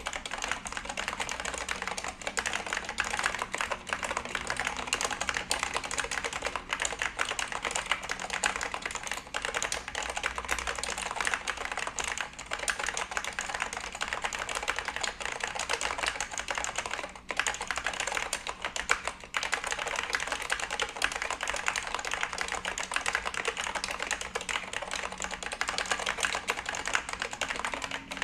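Fast, continuous typing on a Reudo Rboard Pro for Mac keyboard with Alps SKCL Yellow linear switches and thick keycaps: a dense stream of keystrokes, broken by a few short pauses.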